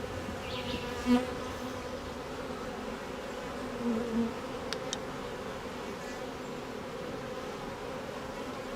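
Many honeybees buzzing steadily around an opened hive, the sound of a disturbed colony flying up around the beekeepers, with a couple of brief louder moments as bees pass close.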